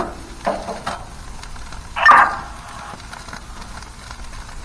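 A dog barks once, loudly, about two seconds in, with a few fainter shorter sounds before it, over the faint sizzle of burgers frying on foil on a propane grill.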